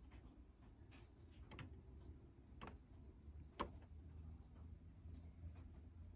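A fan's switch or button clicked four times, about a second apart, the last click the loudest, with no motor starting up: the fan won't turn on.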